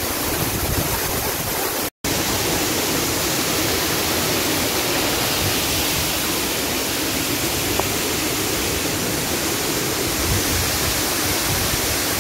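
Waterfall in full monsoon flow, a steady heavy rush of water. It cuts out for an instant about two seconds in.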